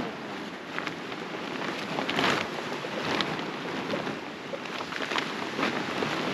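Strong wind blowing, with irregular rustles and knocks through it.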